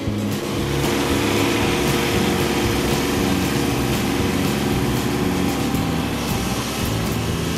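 Kubota B2601 compact tractor's three-cylinder diesel engine running as the tractor drives up, getting louder about a second in and then holding steady.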